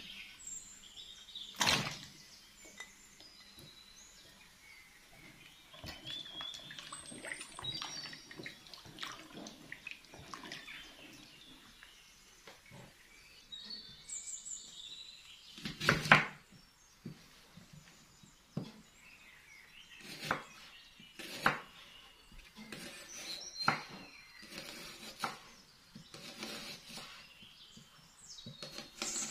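Small birds chirping and tweeting throughout, with sharp knocks of a kitchen knife cutting a red onion on a wooden cutting board. The knocks come about once a second in the last third, and the loudest is a single knock about halfway through.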